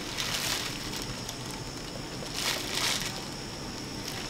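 Clear plastic bag crinkling as it is handled, in two short rustling bursts a couple of seconds apart.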